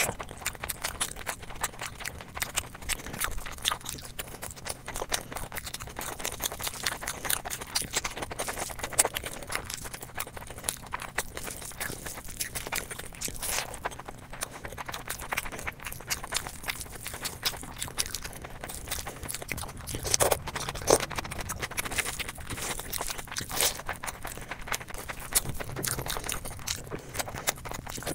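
Close-miked eating sounds: a person chewing and smacking with dense, irregular wet clicks, with a couple of louder smacks about two-thirds of the way through.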